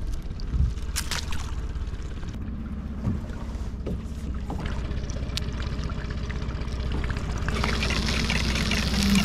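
Small boat's outboard motor running steadily at trolling speed, a low even hum. Scattered sharp clicks and knocks of fishing gear being handled come through it, and a rushing, water-like hiss joins in about three-quarters of the way through.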